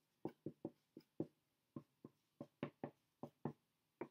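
Dry-erase marker writing on a whiteboard: a quick, irregular run of short separate strokes, about four a second.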